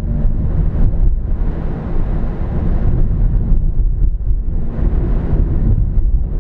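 Car interior noise picked up by a dashcam: a steady low rumble of engine and tyres on a rough concrete track at low speed, with a higher hiss swelling twice.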